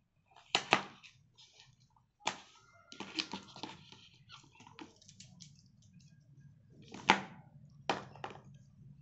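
Handling of an unboxed neckband earphone and its cardboard packaging tray: scattered sharp clicks and knocks with rustling, the loudest at about seven seconds, as the earphones and cable are pulled out. A steady low hum runs underneath.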